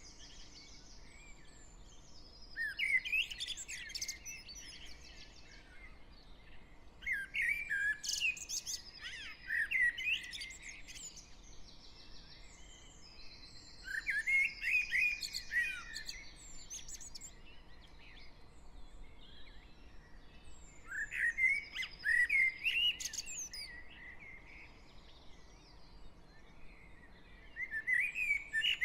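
Dawn chorus of garden songbirds. A near bird sings a loud, quick, trilling song phrase of two to three seconds about every six seconds, five times in all, with fainter birds singing between phrases. A faint distant traffic hum sits underneath.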